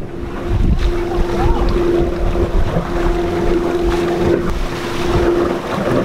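Water rushing and splashing along the hull of a sailboat under way, with wind buffeting the microphone. A steady humming tone runs under the water noise and breaks off briefly a couple of times.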